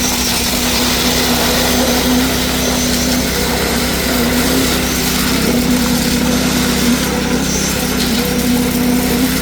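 Engine of concrete-pouring machinery running steadily: a loud, continuous drone with a slightly wavering hum.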